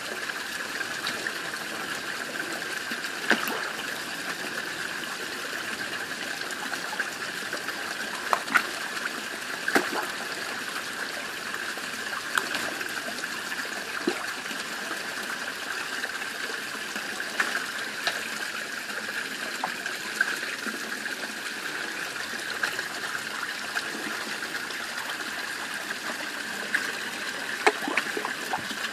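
Steady trickle of running water in a garden pond, with a handful of short, sharp splashes of carp taking floating food pellets at the surface.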